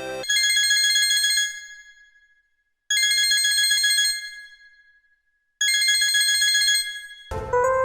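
Huawei mobile phone ringtone imitating a telephone ring: a high electronic ring sounds three times, each lasting about a second and fading away before the next. Near the end, a different melodic ringtone starts.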